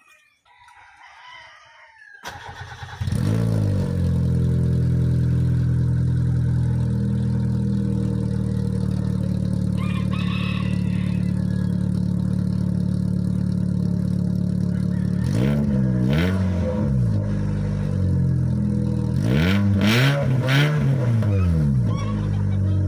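Nissan Sentra (Exalta) car engine starting about two seconds in and idling steadily through a home-modified muffler, its canister cut with holes and fitted with a perforated tip to give a sports-car exhaust note. It is revved in two quick blips around fifteen and sixteen seconds in, then twice more near twenty seconds.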